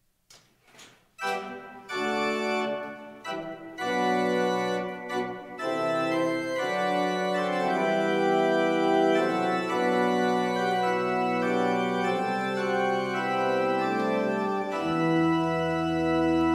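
Church organ playing slow sustained chords that begin about a second in, after a few faint clicks. A deep pedal bass comes in near the end.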